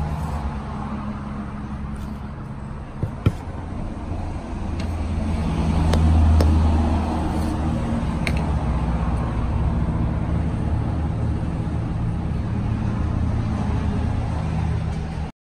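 Steady low rumble of motor traffic, swelling about six seconds in, with a light knock about three seconds in.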